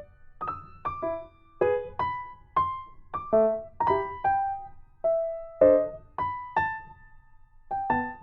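Background music: a light tune of separate electric-piano-like notes, each struck and fading, about two a second.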